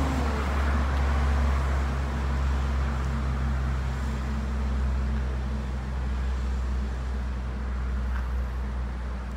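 Steady low rumble of a slowly moving car, its engine hum and road noise, easing slightly toward the end.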